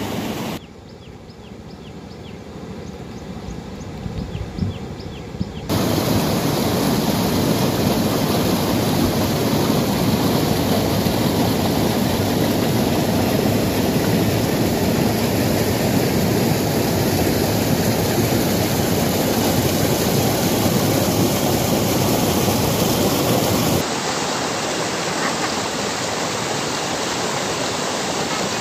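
Rushing floodwater of a swollen stream, a steady loud rush of water. It is quieter for the first few seconds, then jumps to a much louder rush about six seconds in, and changes abruptly again a few seconds before the end.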